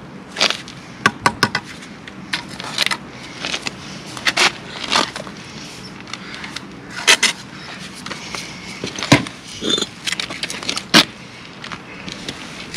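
Irregular sharp knocks, clicks and short scrapes of bricklaying work, a steel trowel and bricks striking one another, about fifteen in all with a quick run of four about a second in.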